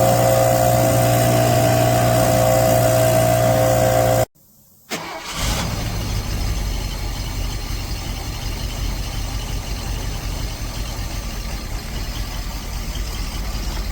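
A motor running steadily with a clear pitched hum cuts off abruptly about four seconds in. After about a second of silence, a lower, rougher engine sound starts and runs steadily.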